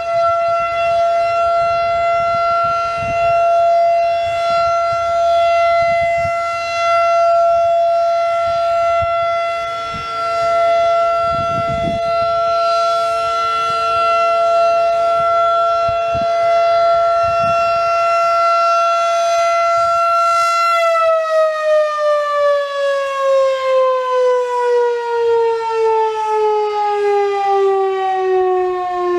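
Federal Signal 2001-SRN electromechanical warning siren sounding its steady alert tone at full pitch. About 21 seconds in it is cut off and winds down, its pitch falling steadily.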